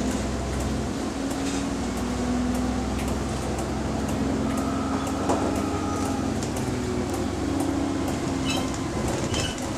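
Interior of a double-decker bus on the move: the diesel engine running with a steady hum, with rattles and a regular clicking that follows the engine's revs.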